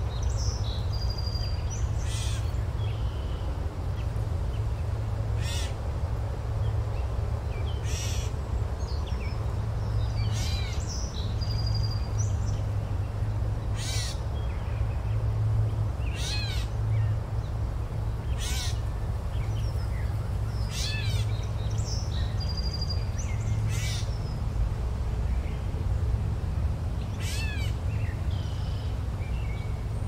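Steady rush of a waterfall with a deep rumble underneath, and a bird calling over it in short calls every two to three seconds.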